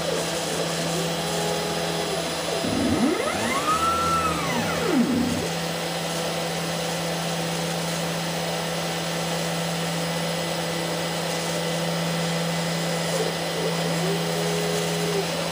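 OX CNC router running a program: its stepper motors whine as the axes move, the pitch rising and falling as they speed up and slow down, twice holding steady for about a second, over a steady machine hum.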